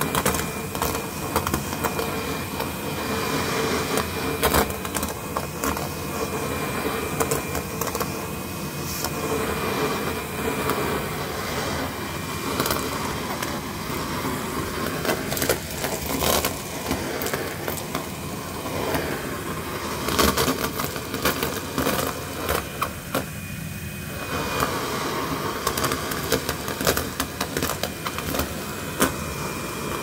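Henry cordless cylinder vacuum cleaner running steadily with a crevice tool on carpet. Frequent sharp clicks and rattles come from foil confetti being sucked up through the tool and hose.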